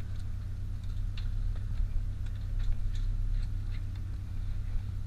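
The boat's engine runs with a steady low hum, and irregular light ticks and clicks sound over it.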